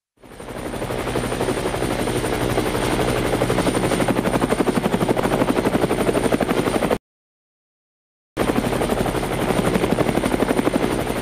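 Helicopter rotor running, its blades beating in rapid, even pulses. It cuts off abruptly about seven seconds in and starts again over a second later.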